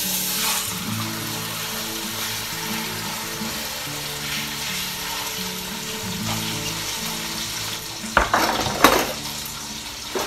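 Chuck roast searing in hot olive oil in an enameled cast-iron Dutch oven: a steady sizzle, loudest as the meat goes in at the start. A few sharp knocks come about eight seconds in.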